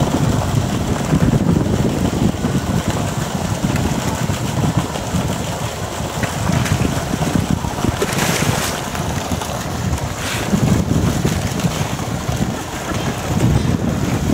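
Wind buffeting the microphone in a heavy, uneven rumble, with water splashing as a polar bear churns the pool, most clearly about eight and ten seconds in.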